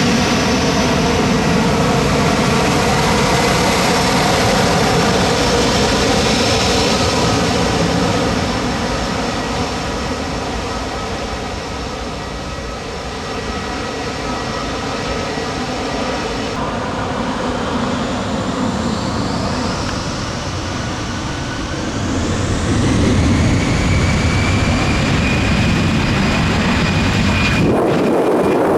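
Airbus A319 jet engines running with several steady whining tones. After a quieter spell the whine rises in pitch and the sound grows louder as the engines spool up for takeoff. Near the end it changes abruptly to a rough rushing blast.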